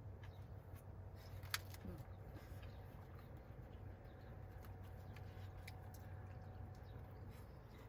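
Quiet room tone: a steady low hum with a few faint clicks, one sharper click about a second and a half in.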